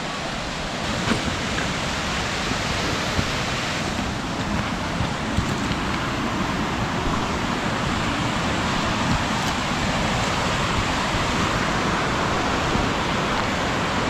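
Steady rushing of a waterfall and stream in the rocky gorge below, a full, even hiss of falling water, with a few faint crunches of footsteps on a stony path.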